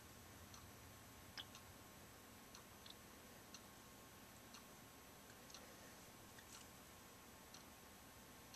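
Near silence: room tone with faint small ticks about once a second.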